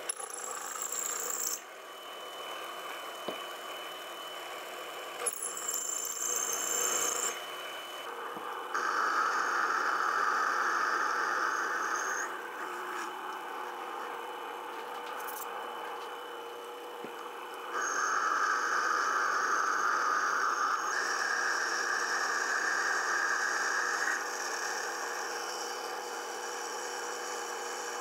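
Sherline benchtop lathe running with a steady whine while drilling and then boring a 6061 aluminium blank. The cutting noise comes and goes in passes of a few seconds each, with the loudest passes about a third of the way in and again past the middle.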